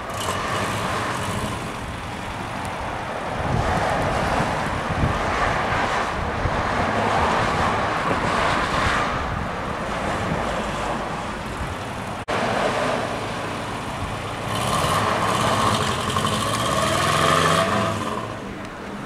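Jowett Javelin's flat-four engine ticking over as it waits to pull out, with traffic passing on the road. Near the end the engine revs up, rising in pitch as the car accelerates away.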